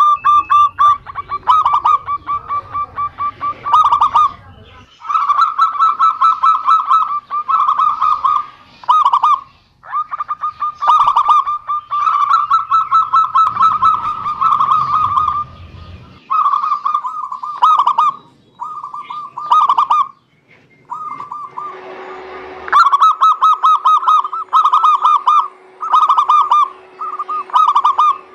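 Zebra doves (perkutut) singing: rapid staccato cooing phrases, each about a second long, repeated with short gaps.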